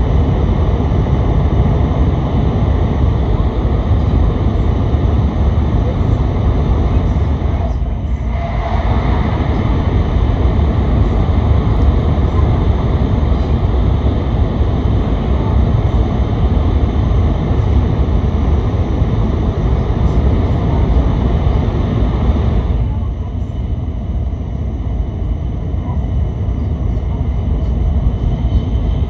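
Inside the cabin of a Nishi-Kyushu Shinkansen (N700S) train running at speed through a tunnel: a steady loud rumble with a hiss on top. The hiss briefly dips about eight seconds in and falls away about 23 seconds in, leaving mostly the low rumble.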